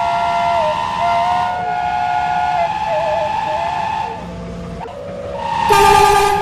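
Truck's basuri "telolet" multi-tone horn sounding several sustained notes at once while one note warbles up and down in a tune, then a louder blast near the end.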